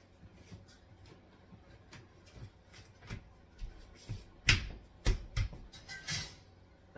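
Bloom four-tier greenhouse frame poles and connectors knocking and clicking as they are handled and fitted together: scattered light taps, with two louder knocks about halfway through and a short rustle just after.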